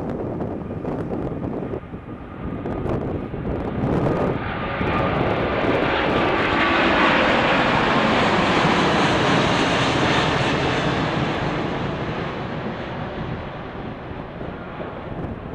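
Airbus A380's four Rolls-Royce Trent 900 turbofans at take-off thrust as it climbs out and passes overhead: a broad jet roar that swells from about four seconds in, is loudest in the middle, and fades toward the end. Wind gusts buffet the microphone in the first few seconds.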